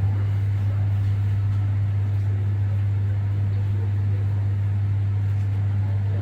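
Microwave oven running: a steady low electrical hum from its high-voltage transformer while it heats.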